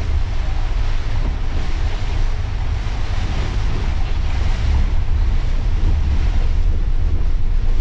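Steady low rumble and hiss of an intercity coach driving at speed on a rain-soaked road, heard from inside the driver's cab, with rain and tyre spray on the road adding the hiss.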